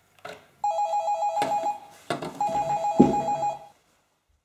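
Electronic doorbell ringing twice, each ring a fast two-tone warble about a second long, with a loud thump about three seconds in.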